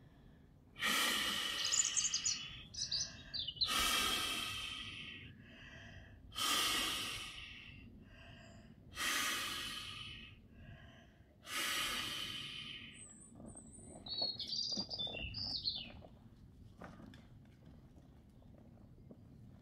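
Five long breaths blown by mouth into the valve of an inflatable dragon swim ring, one every two to three seconds, each a loud rush of air. Birds chirp between the breaths and again after them.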